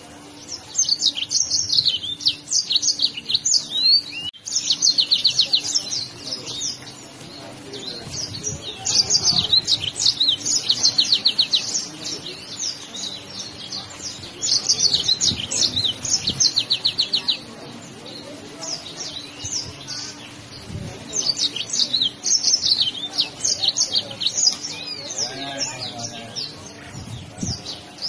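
Yellow-fronted canary (Mozambique canary) singing in loud phrases of rapid trills and twittering, each a few seconds long, with short pauses between them.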